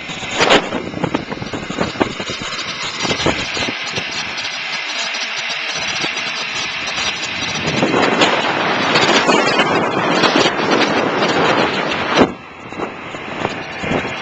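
Motor scooter running with wind rushing over the microphone as it rides along. The noise swells about eight seconds in and drops off sharply near the end, with a few sharp knocks along the way.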